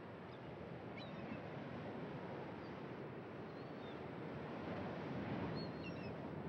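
Steady wash of waves on open water, swelling slightly, with a few faint short bird chirps scattered through.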